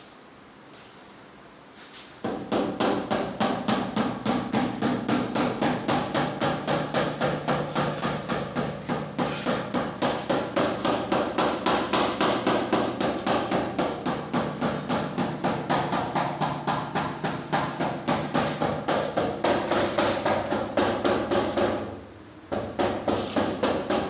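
Hammer blows in a fast, even rhythm, about three a second, with a steady ringing tone under them. They start about two seconds in and break off briefly near the end.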